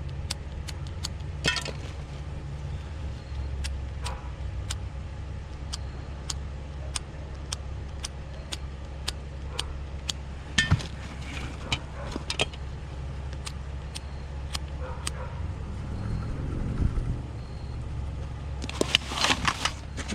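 Scattered light clicks and clattering of small hard objects being handled and moved, with busier bursts of clatter about halfway through and again near the end, over a steady low rumble.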